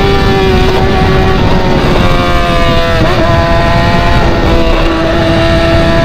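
Loud exhaust of a BMW motorcycle with an open pipe, running at steady high revs while riding, over wind rush on the microphone. The engine note wavers and drops slightly about three seconds in.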